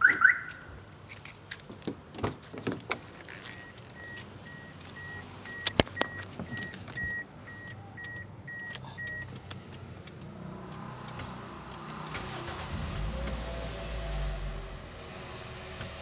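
Aftermarket keyless smart alarm on a Toyota Vios gives one loud chirp, followed by door clicks and knocks. A steady high beep then repeats about twice a second for several seconds. Near the end the Vios four-cylinder engine cranks, starts, and settles into an idle.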